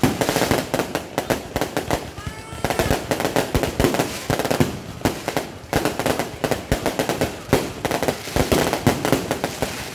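Fireworks display going off close by: dense, rapid bangs and crackling, one burst after another with no gaps. A short high gliding tone rises and falls about two seconds in.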